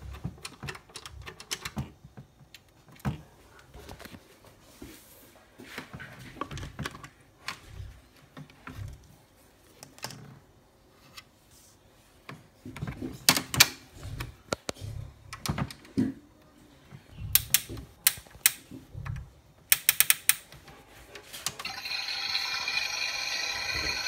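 Plastic clicks and knocks of a toy Miele washing machine being handled: its buttons pressed and its door opened and closed. About three-quarters of the way through, a steady high-pitched hum with several fixed tones starts up from the toy and holds.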